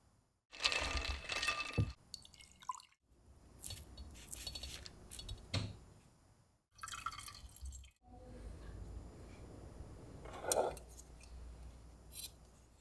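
A string of short kitchen sounds broken up by cuts, among them melted ghee pouring and dripping through a fine-mesh strainer into a glass jar.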